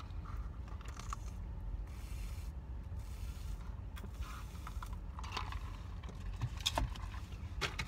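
Steady low rumble inside a car, with a few faint clicks and rustles near the end.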